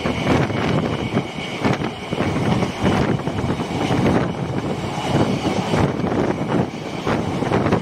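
A train running at speed, heard from a carriage window: a steady loud rumble with constant rattling, and wind buffeting the microphone.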